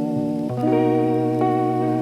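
Lo-fi hip hop music: mellow held chords over a sustained bass note, changing chord about half a second in.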